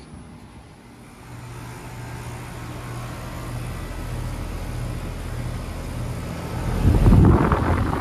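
Outdoor air conditioner condensing units running in cooling mode, a steady low hum of compressor and fan that grows louder from about a second in. Near the end comes a much louder rough rush of air from a condenser's top-discharge fan close up.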